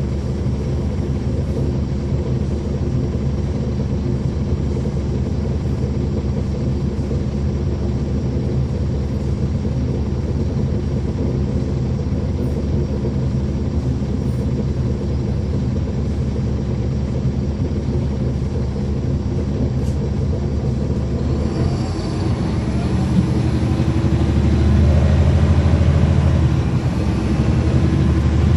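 Caterpillar C13 ACERT diesel engine of a 2009 NABI 40-SFW transit bus, heard from inside the bus, running steadily at idle. About twenty seconds in, the bus pulls away: the engine note rises and grows louder, with more road noise.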